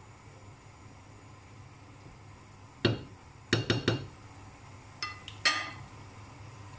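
Cookware clinking against a pot on the stove: a sharp strike about three seconds in, a quick run of three, then two more with a short ringing tone, over a faint steady low hum.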